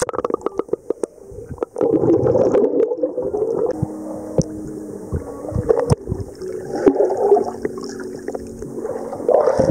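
Bubbling and gurgling water with many irregular clicks and knocks. A faint steady hum runs through the middle.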